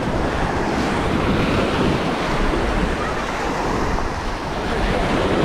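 Ocean surf washing up the beach with wind buffeting the microphone, a steady rushing noise with a heavy low rumble.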